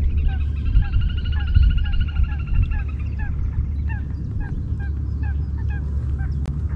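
Birds calling: many short hooked call notes repeated through, with a long pulsed trill for about the first three seconds. A steady low rumble runs underneath.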